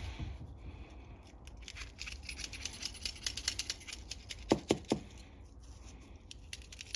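Rapid light clicking and scratching of a small carburetor jet-cleaning tool being worked at the carburetor, with three soft knocks a little past the middle.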